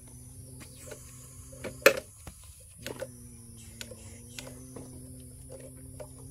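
Clicks, scrapes and knocks of soil and a small wooden block being handled and dropped into a handmade toy dump truck's bed, with one sharp knock about two seconds in. A steady low humming drone runs beneath, breaking off briefly twice.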